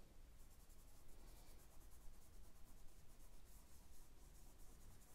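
Fingers rubbing charcoal into sketchbook paper to blend it: faint, quick repeated scratchy strokes starting about half a second in.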